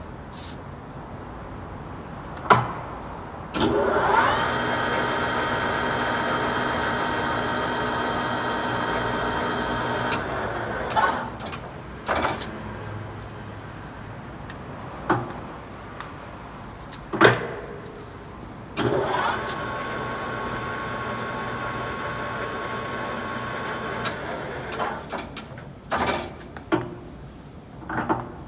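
Chubu Koki LL-1000 lathe running: a steady gear whine that rises briefly as it starts, runs for about seven seconds and stops, then starts again for about five seconds. Sharp clicks and knocks come between and after the two runs.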